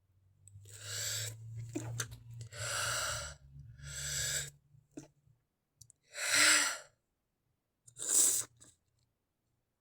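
A person taking several breathy, hitching breaths, then two stifled sneezes about a second and a half apart, louder than the breaths.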